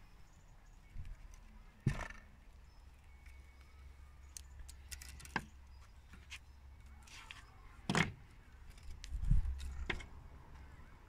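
Small clicks and ticks of a tennis racket string being threaded and pulled through the stringbed by hand while tying off a knot, with louder clicks about two seconds in and about eight seconds in, and a brief low rumble a little after nine seconds.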